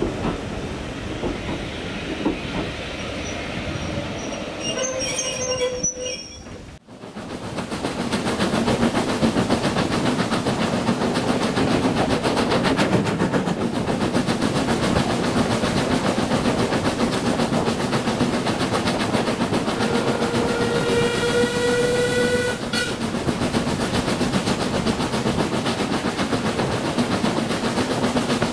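A train is running with a steady rumble and rail clatter. A steam locomotive's whistle sounds briefly about five seconds in, then again in a longer blast of about three seconds near the twenty-second mark that cuts off sharply. The running noise breaks off abruptly near seven seconds and comes back louder.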